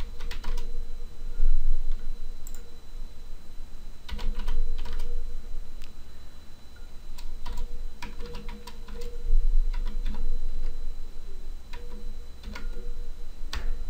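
Computer keyboard keys clicking as a short command is typed, in irregular bursts of keystrokes with brief pauses between them.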